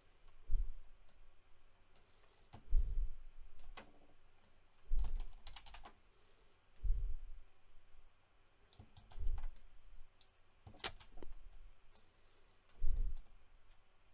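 Quiet computer mouse clicks and keyboard keystrokes, scattered and irregular, with a dull low thump about every two seconds.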